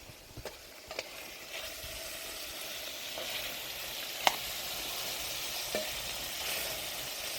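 Food frying in a pan, sizzling, growing louder over the first few seconds, with a few sharp clinks of a utensil, the loudest about four seconds in.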